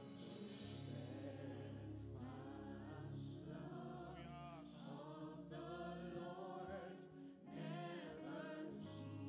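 Live gospel worship song: a male lead vocalist sings long, held notes with a choir, over sustained accompaniment chords.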